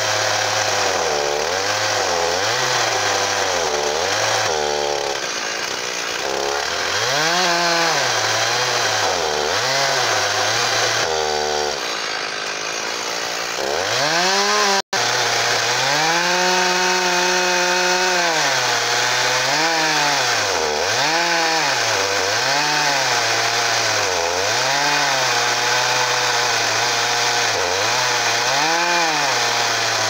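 Chainsaw on an Alaskan chainsaw mill ripping a 1-inch slab lengthwise from a bitternut hickory log, running under full load. Its engine note sags and recovers about once a second, with a brief dropout about halfway.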